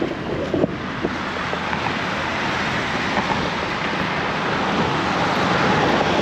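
Steady rushing outdoor background noise that swells a little toward the end, with two short knocks about half a second and a second in.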